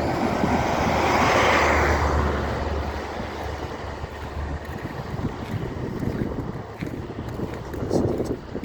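A vehicle passing on a rain-wet road, its tyre and engine noise swelling to a peak about a second and a half in and fading within a few seconds, with wind noise on the microphone. A shorter swell of noise comes near the end.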